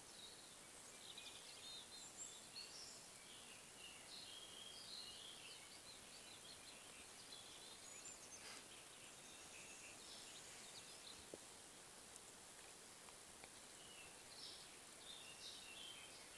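Faint birdsong: scattered short chirps and warbling phrases, over a steady hiss.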